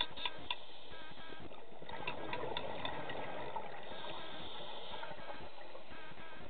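Underwater sound of a scuba diver's exhaled bubbles rushing, swelling from about one and a half to five seconds in, with scattered sharp clicks near the start and around the middle.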